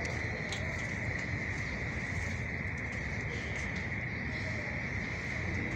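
Muddy floodwater flowing steadily, a constant rushing noise, with a steady high-pitched whine over it.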